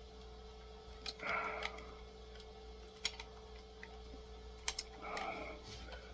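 Small sharp clicks and brief scraping of a screwdriver working at a stubborn screw that won't come out, a few times, over a steady low electrical hum.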